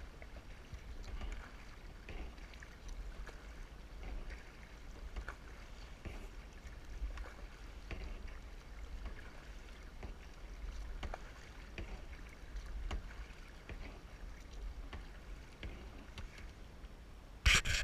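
Kayak being paddled on calm water: soft paddle strokes and water lapping against the hull, over a steady low rumble. A brief loud burst of noise near the end.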